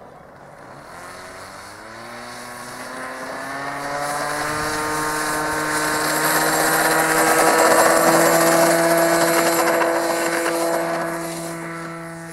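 Radio-controlled model airplane's engine and propeller opening up to full throttle for a takeoff run. Its pitch rises over the first few seconds and then holds steady. It grows louder toward the middle and fades near the end.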